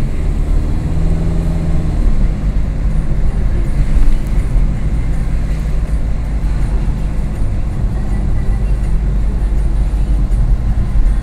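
Car engine and road noise heard from inside the cabin while driving: a steady low rumble, with an engine hum that drops in pitch about two seconds in.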